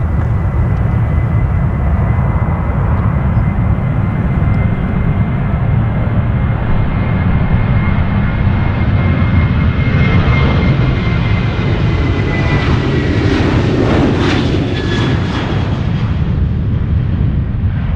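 Boeing 737-800's CFM56 turbofan engines at takeoff thrust during the takeoff roll: a steady high whine over a heavy rumble. The sound grows fuller and louder as the airliner speeds past about three quarters of the way through, and the whine drops slightly in pitch as it goes by.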